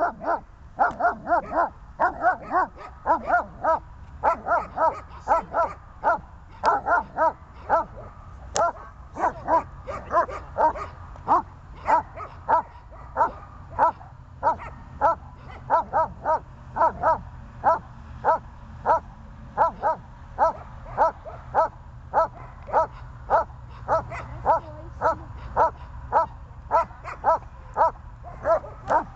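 German Shepherd Dog barking in a steady rhythm, about two barks a second, at a decoy holding a bite tug in protection training.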